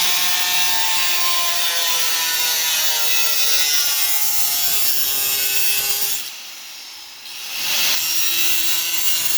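Angle grinder with a cutoff wheel grinding into a car hood, its motor whine sagging lower under load. It drops away about six seconds in, then bites in again with a harsh burst and runs on to the end.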